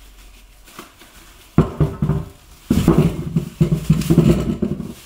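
Potatoes tipped from a plastic bag into a pot, tumbling in as a run of thuds and knocks. It starts suddenly about a second and a half in and is densest in the second half.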